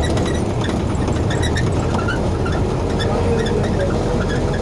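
Steady engine and road noise of a moving vehicle in traffic, a dense low rumble with faint scattered street sounds above it.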